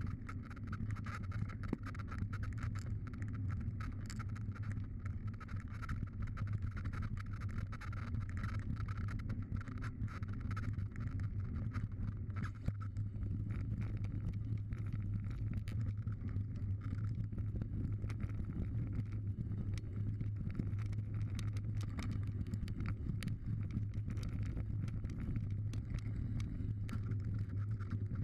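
Mountain bike riding fast down a rough dirt trail, picked up close on the handlebars: a steady rumble of tyres and wind with constant small rattles and knocks from the bike over the bumps, and one sharper knock about halfway through.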